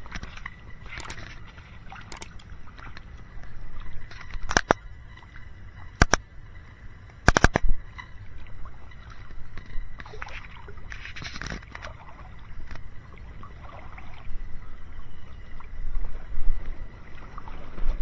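Outdoor wind rumbling on the microphone, with footsteps splashing and squelching through muddy puddles. Several sharp clicks come in the first half, two of them close together, over a faint steady high tone.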